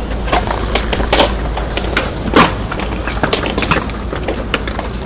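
Skateboards on concrete: wheels rolling with a steady low rumble, and scattered clacks of boards hitting the ground, the loudest about two and a half seconds in.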